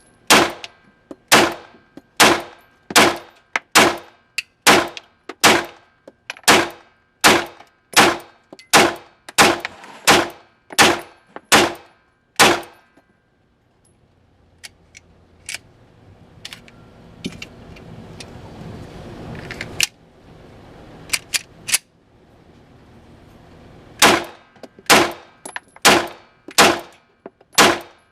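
FN 509 Compact Tactical 9mm pistol firing a steady string of single shots, about one every three-quarters of a second. About halfway through the shots stop for roughly ten seconds of handling noise and a few clicks, then the steady firing resumes.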